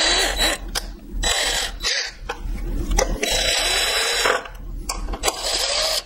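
Cordless drill-driver running in several short runs, driving self-tapping screws into the wall of a plastic project box.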